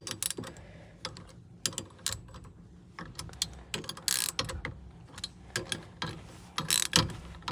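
Scattered metallic clicks and short rattles from hand tools and steering-column parts being worked on a Jeep, coming at uneven intervals rather than as a steady ratchet rhythm.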